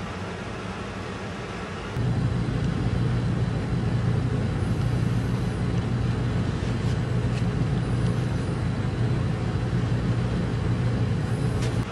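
Steady low mechanical hum, like a fan or air handler in the room, that becomes louder about two seconds in, with a few faint handling clicks.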